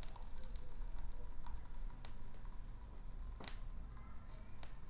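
Irregular sharp ticks and pops, the loudest about three and a half seconds in, as water leaks from heat-melted holes in a plastic bottle and drips onto a lit gas burner, over the low steady sound of the flame.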